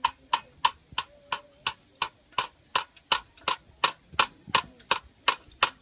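Hammer tapping a nail to fix a sign onto a concrete well plinth: a steady run of sharp, light strikes, about three a second.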